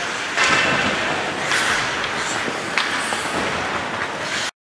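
Ice rink ambience: skates scraping and gliding on the ice, with a few sharp knocks of sticks or pucks. The sound cuts off abruptly near the end.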